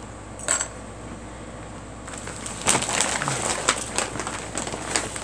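Stiff plastic dog-food-bag quilt material crinkling and rustling as it is handled, with small clicks of sewing clips being taken off. There is one click about half a second in, and the crinkling starts about two seconds in and grows louder.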